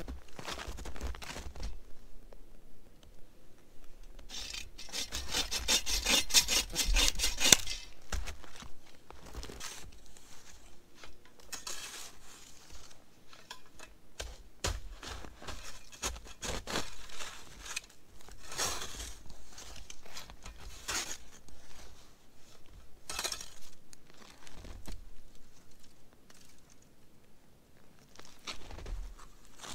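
Folding bow saw cutting through a dead branch in quick back-and-forth strokes, loudest and fastest about four to eight seconds in, followed by scattered quieter strokes, scrapes and crunches.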